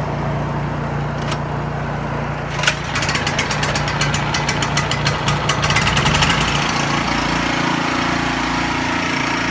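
Honda EU3000is inverter generator running steadily while a Champion 4000-watt (3500 running watts) portable generator is started beside it. A sharp knock comes about two and a half seconds in, then a few seconds of rapid clatter as the Champion catches and settles. From about seven seconds in the two run together, the Champion adding a second, louder steady hum.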